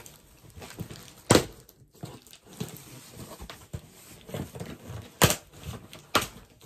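A parcel's packaging being handled and opened: rustling and crinkling, with three sharp knocks, one about a second in and two near the end.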